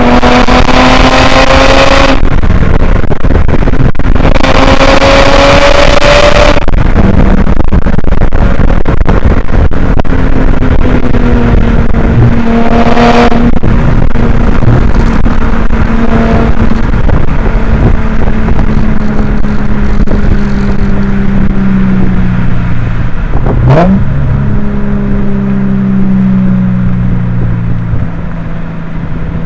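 Subaru Legacy Spec.B's 3.0-litre flat-six (EZ30R) through a muffler-deleted exhaust, driving: two hard pulls in the first seven seconds, each rising in pitch and broken off by a gearshift. After that the engine runs at lower revs with its pitch slowly falling. Wind noise on the microphone peaks the recording.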